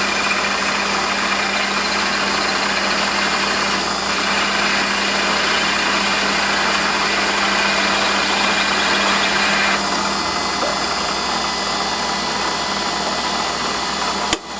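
Warco metalworking lathe running with a drill boring a deep hole, a steady mechanical hiss with a constant hum underneath. About ten seconds in the hum stops and the hiss eases, and a few sharp clicks come right at the end.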